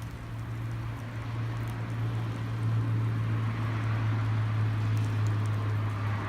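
Campfire burning, with a few faint crackles and a soft hiss, over a steady low hum that gets a little louder after the first second or so.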